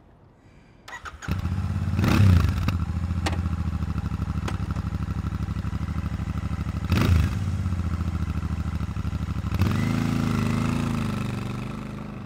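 Royal Enfield Shotgun 650's 648cc air-cooled parallel twin being started: it catches about a second in and idles evenly, with two quick throttle blips. Its note changes near the end and then fades away.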